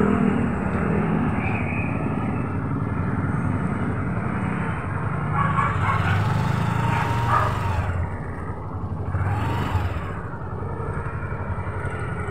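Motorcycle engine of a tricycle running steadily under way, a low drone with a fast, even beat.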